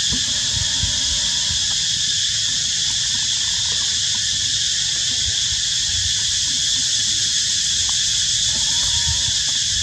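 Steady, high-pitched chorus of forest insects, an unbroken drone, with faint low knocks underneath.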